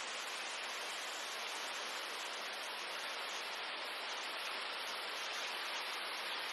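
Steady rushing of water, an even hiss with no rhythm or strokes.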